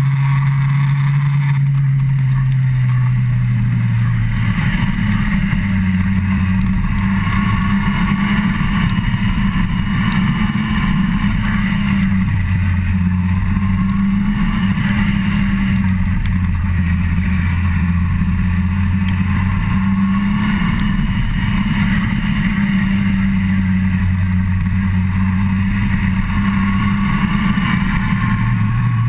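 Yamaha FZ1 motorcycle's inline-four engine running under way, its note stepping up and down several times with throttle and gear changes, over a steady rush of air.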